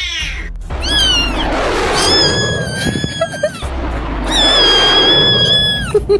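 Meme sound clip of high-pitched screaming, three long held screams over a low rumble: one about a second in, one around two seconds, and one from about four to six seconds.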